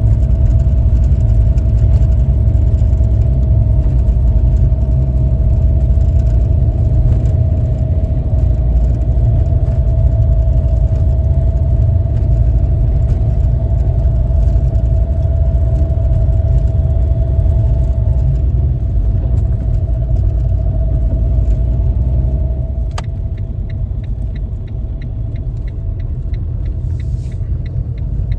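Car driving, with a steady low road-and-engine rumble and a steady hum over it. Near the end there is a click, the rumble eases a little, and a fast, regular light ticking starts.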